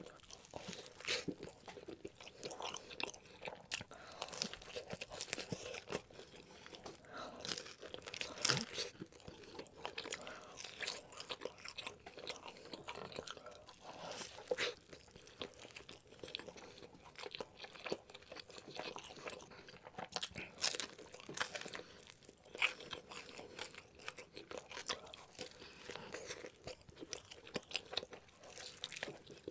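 Close-miked chewing and biting into a cheeseburger: an irregular run of crunches and mouth noises.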